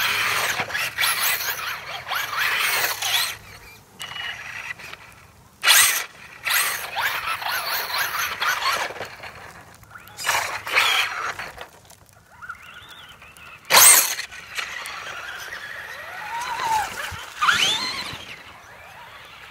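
Radio-controlled monster truck's electric motor and drivetrain whining up and down in pitch as it accelerates and slows in repeated passes, with its tyres spinning and churning wet mud. Two sharp knocks stand out, about six and fourteen seconds in.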